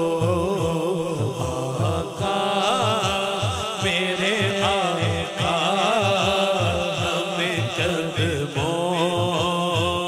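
Male naat reciter singing live into a microphone, drawing out a long, ornamented vocal line, over a low, pulsing rhythmic drone of background chanting voices.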